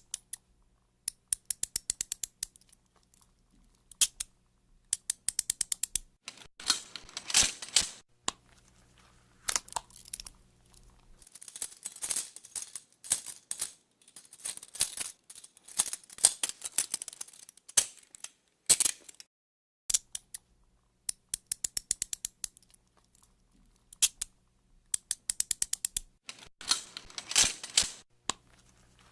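Metal handcuffs ratcheting shut: quick runs of sharp clicks repeated many times, with rattling stretches in between.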